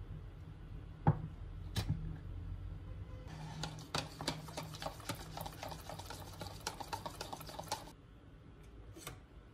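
Salad dressing stirred briskly in a small plastic cup: a rapid run of clicking and tapping from the utensil against the plastic that lasts about four and a half seconds, after two sharp knocks in the first couple of seconds.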